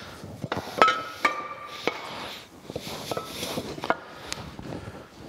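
Cast-iron cane mill parts clinking and knocking as they are fitted together by hand: a handful of sharp metal clinks, the loudest just under a second in, a couple of them leaving a short ring.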